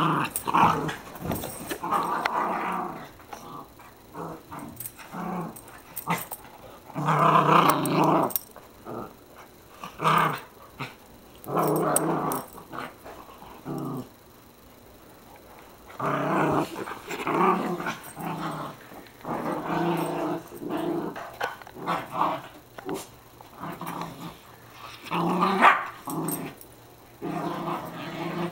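Two dogs growling at each other in repeated bursts while they play-fight.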